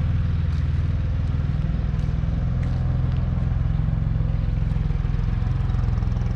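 Farm tractor engine running steadily, a low hum whose pitch shifts slightly about halfway through.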